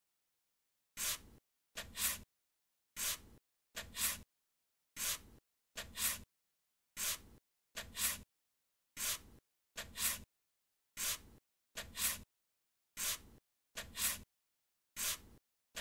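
Paintbrush strokes on cold press watercolor paper, recorded and laid out as a rhythmic soundtrack. There is a short swish about once a second, every other one doubled, with dead silence between.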